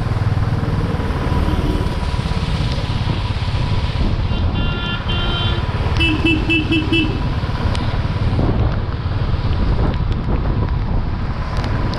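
Motorcycle ride through city traffic: a steady low rumble of wind and road noise on the microphone, with a vehicle horn sounding about four and a half seconds in and a quick run of short horn toots about six seconds in.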